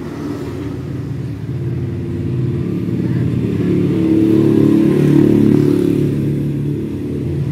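An engine running, a steady low hum that grows louder to a peak about halfway through and then eases off, like a motor vehicle going by.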